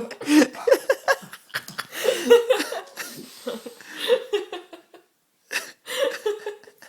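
People laughing in short repeated bursts. The laughter stops briefly about five seconds in, then starts again.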